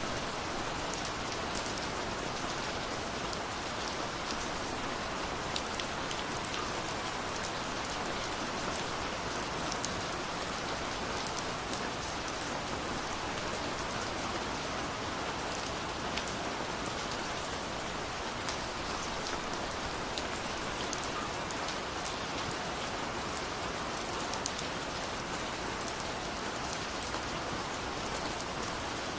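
Steady rain falling, an even hiss with many small sharp drop ticks scattered throughout.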